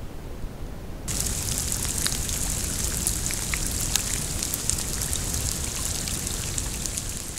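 Rain falling on shallow marsh water, a dense hiss made of many small, sharp drop ticks that starts suddenly about a second in. Before it there is only a faint, even hiss.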